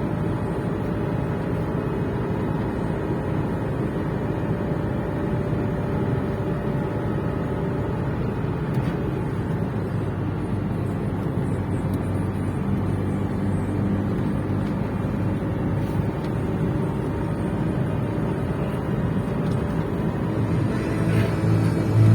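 Steady running of a vehicle's engine at an even speed, a constant low hum with no changes in pitch.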